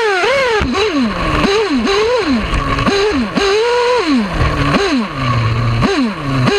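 Novarossi P5 .21 nitro engine of an RC buggy, heard up close from on board, revving up and down in quick blips of the throttle. It holds a high pitch about four seconds in, drops to a low idle about a second later, then goes back to rapid revving near the end.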